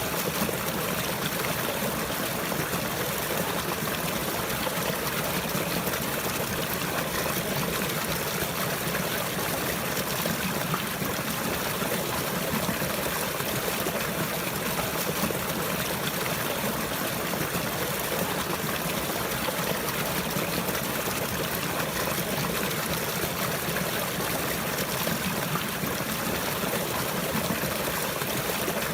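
Running water flowing and trickling steadily, an even continuous rush with no change.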